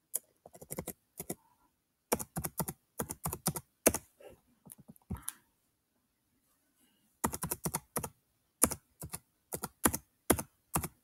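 Chromebook keyboard being typed on as a password is entered: quick runs of key clicks, then a pause of about two seconds before the typing starts again, the password being re-entered after it was rejected.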